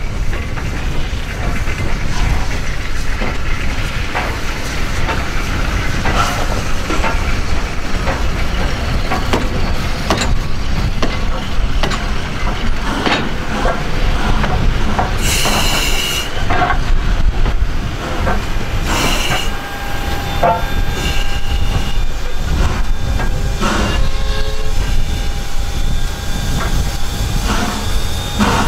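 Steam-hauled broad-gauge heritage train running on the rails: a steady low rumble with frequent clicks and clatter. A brief high squeal comes about halfway through, and a held high tone runs through the second half.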